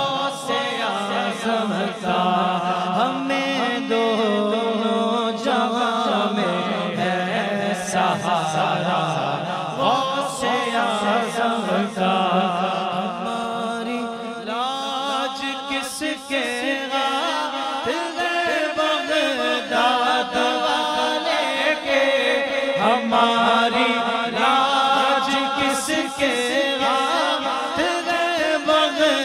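Unaccompanied Urdu devotional singing (a manqabat): a male voice draws out long, wavering, ornamented lines over a continuous lower vocal drone.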